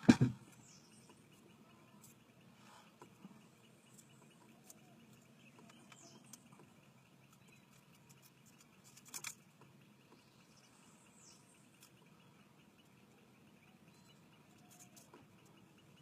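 A sharp knock from the camera being handled just after the start and a softer one about nine seconds in. Between them is a faint outdoor background: a steady high trill and a few short bird chirps.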